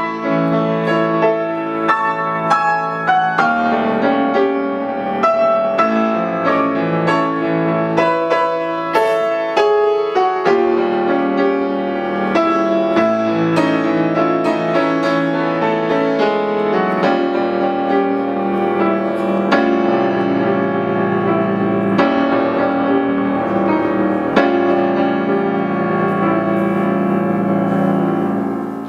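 Solo Bösendorfer grand piano playing a classical piece in a continuous, dense flow of notes. The playing breaks off for a moment near the end.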